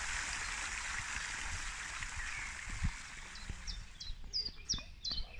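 Fountain water splashing as a steady hiss, fading away around the middle; a soft low thump follows. Then a small bird calls in a quick series of short, high, falling chirps, about three a second.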